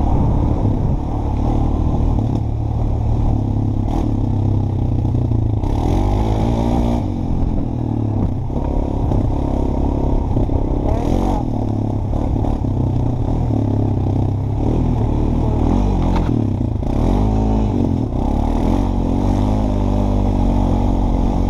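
Honda ATV engine running under way, its pitch rising and falling with the throttle as it rides along a trail.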